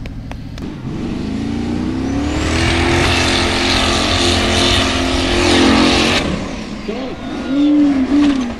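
Formula Offroad buggy's engine revving up and holding at high revs on a steep dirt hill climb, with a dense hiss of spraying dirt. The engine noise cuts off suddenly about six seconds in. Near the end come wavering rising-and-falling sounds as the buggy tumbles back down the slope.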